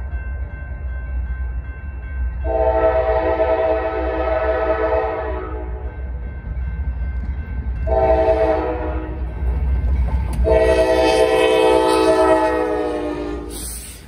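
Norfolk Southern diesel locomotive's air horn sounding the end of the standard grade-crossing signal: a long blast, a short one, then a final long blast. All of it sounds over the steady low rumble of the approaching locomotives' diesel engines.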